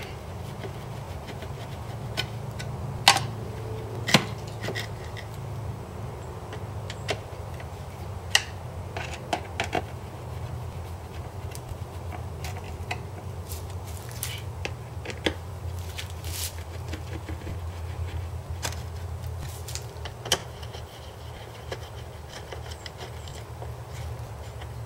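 Scattered sharp metallic clicks and taps of a screwdriver working the screws of a boat seat's metal slider and swivel mount, the loudest about three and four seconds in, over a steady low hum.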